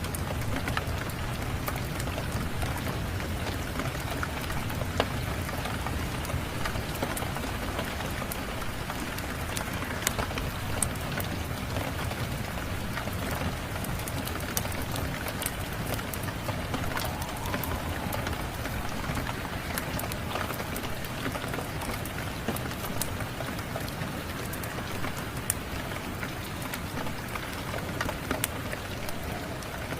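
Steady rain with scattered sharp clicks and pops of a crackling wood fire over it.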